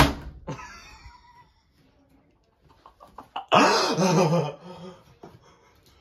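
Front-load washing machine door (LG WM3400CW) slammed shut once: a sharp bang that rings briefly. About three and a half seconds later comes a loud burst of a person's voice.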